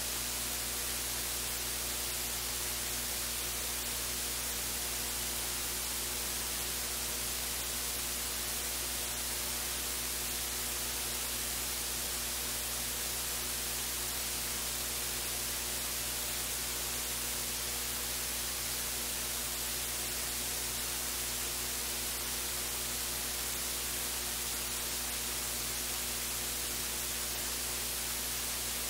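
Steady electronic hiss with a low mains hum, the background noise of the meeting room's microphone and recording feed with no one speaking.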